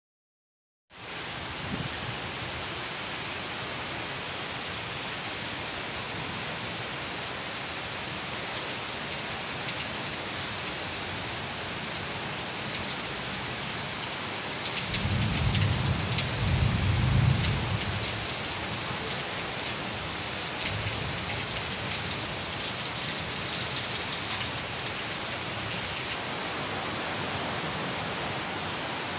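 Heavy rain falling steadily on pavement, starting about a second in, with a low rumble swelling for about three seconds midway.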